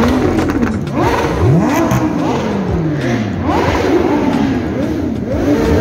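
Car engines revving, their pitch climbing and dropping in repeated, overlapping sweeps every second or two.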